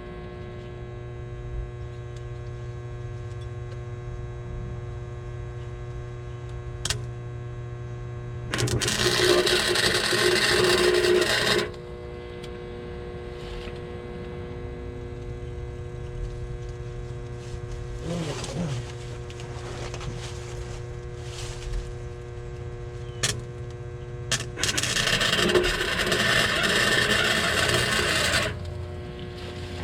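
Small 80-amp MIG welder humming steadily, with two welds of three to four seconds each, the arc crackling loudly: one a third of the way in and one near the end. A sharp click comes shortly before each weld.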